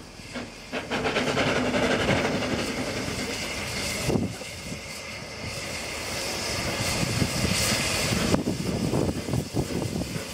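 Narrow-gauge steam locomotive pulling away at low speed: a steady hiss of steam venting from its cylinders, with a few heavier exhaust beats.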